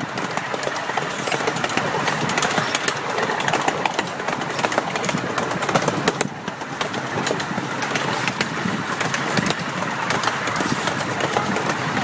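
A miniature park train running along its track, heard from one of its passenger cars. There is a steady running rumble and rattle with many short, sharp clicks and knocks throughout.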